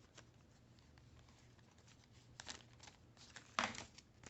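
Trading cards and their packaging being handled in a quiet room: a few short rustles and crackles, the sharpest about three and a half seconds in.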